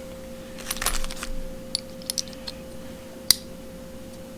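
Small aluminum camera quick-release mounts and buckles clinking and clicking as they are handled. There is a short cluster of light metallic clatter about a second in, a few scattered clicks, and one sharper click past three seconds.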